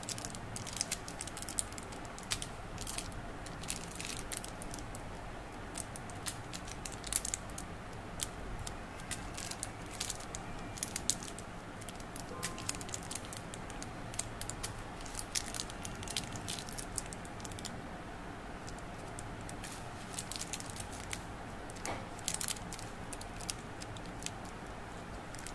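Plastic candy wrappers crinkling and crackling as small individually wrapped fruit jelly sweets are handled, with many quick sharp crackles coming in flurries over a steady low background noise.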